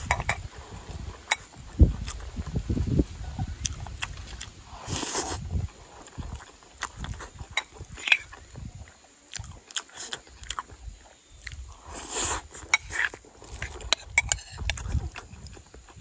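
Close-up eating sounds: a person chewing and smacking mouthfuls of rice, with a metal spoon clicking and scraping against a ceramic bowl. Twice a short breathy hiss stands out, about five seconds in and again near twelve seconds.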